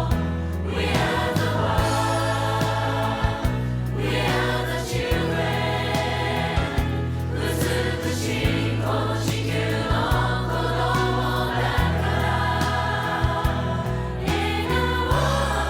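Background music: a song with choir-like singing over sustained chords and a steady bass.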